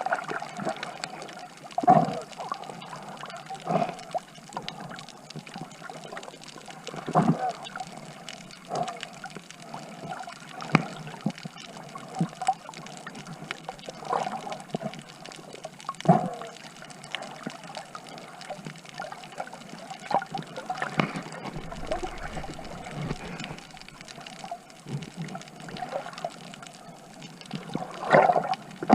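Water splashing and trickling, with irregular sharper splashes every second or two over a steady wash.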